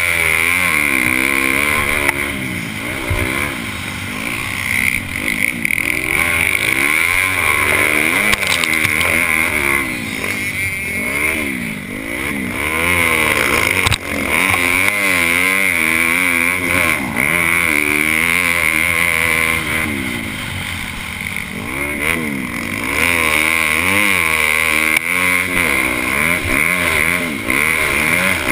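Honda CRF250 single-cylinder four-stroke motocross engine with a Yoshimura exhaust, ridden hard: the revs climb and drop again and again as the rider accelerates, shifts and rolls off for corners. Heard from the rider's helmet, with a steady high hiss over the engine.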